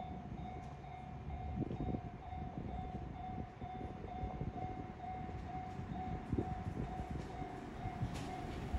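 Japanese railway level-crossing warning bell ringing in a steady, even repeat of about two and a half dings a second, signalling a train approaching. A low rumble sits underneath.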